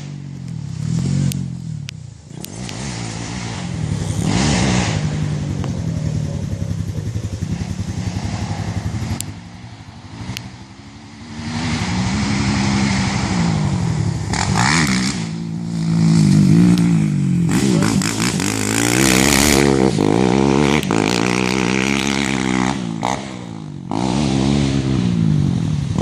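Racing ATV engines revving hard on a motocross track, the pitch climbing and falling again and again with throttle and gear changes as machines pass. The sound drops off briefly about ten seconds in and again near the end.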